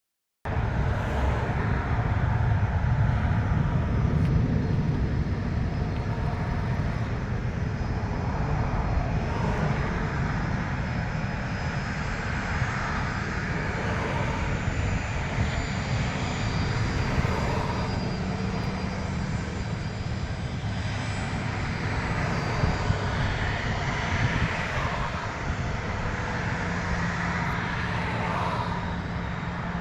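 A Boeing 737-700's CFM56-7B jet engines running for takeoff, heard from inside the cabin as a steady, dense low rumble with a hiss above it. A steady low hum joins in during the second half.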